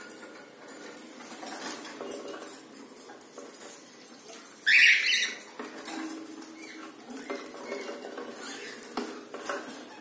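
Cockatiels' claws and beaks clicking, tapping and scratching on a wire-mesh cage top and a wooden nest box, with one short, loud rasping sound about halfway through.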